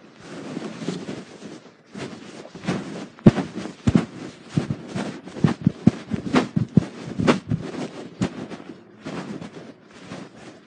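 Blanket-jacket fabric rubbing and brushing over a phone's microphone inside the pocket, with irregular knocks and thumps that come thickest in the middle.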